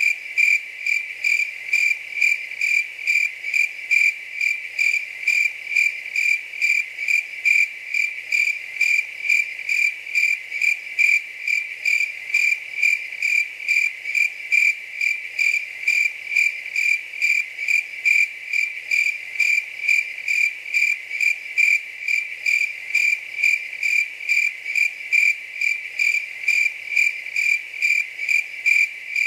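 A cricket chirping steadily at one high pitch, with evenly spaced chirps about twice a second.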